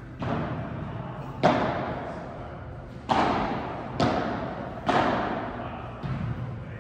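About six sharp thuds at uneven intervals, each ringing out in a long echo in a large hall.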